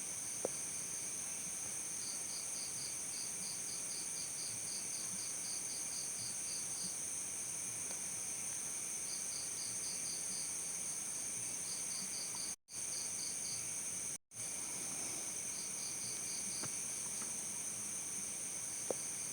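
Crickets chirping: a steady high trill under repeated runs of rapid, evenly spaced chirps that start and stop every few seconds. The sound cuts out for a split second twice, past the middle.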